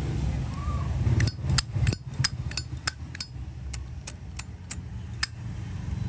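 Zippo lighter's hinged lid being flicked open and snapped shut over and over: a quick run of sharp metallic clicks, about three a second, over a low steady rumble.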